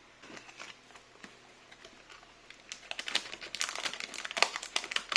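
Packaging crinkling as a boxed PC fan kit is unpacked: a few scattered crackles at first, then dense crinkling from a little after halfway.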